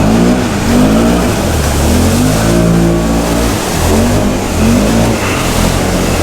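Can-Am Outlander 650 XMR's V-twin engine revving hard under full throttle through deep mud and water, its pitch climbing, dropping about three and a half seconds in, then climbing again, over a steady rush of churned water and mud.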